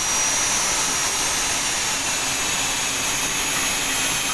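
Electric hand drill running steadily with a high whine, its thin bit boring screw holes into the door edge through the lock's faceplate.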